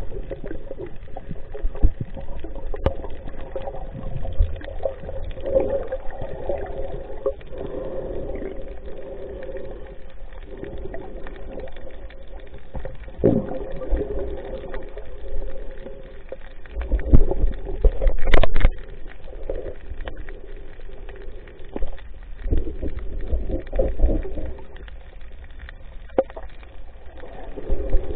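Muffled water sloshing and splashing around the camera while snorkeling, with irregular swells and knocks, the loudest cluster about two-thirds of the way through.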